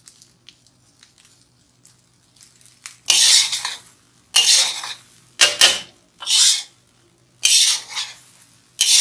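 Metal spatula scraping against a wok as fried rice is stirred and tossed, a run of rasping strokes about one a second beginning about three seconds in.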